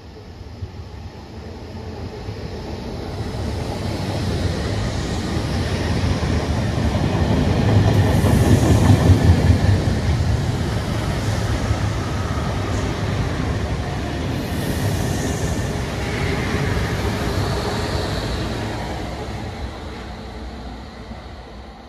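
RER electric commuter train running through a station at speed: its rumble builds as it approaches, is loudest about nine seconds in, stays strong while the cars go by, and fades near the end.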